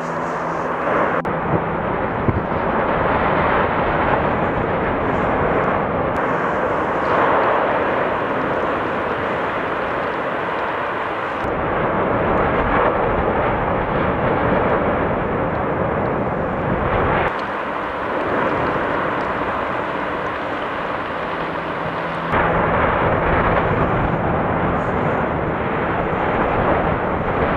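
An explosive volcanic eruption venting an ash column: a loud, steady rushing noise with no pitch to it, whose level and tone change suddenly every five or six seconds.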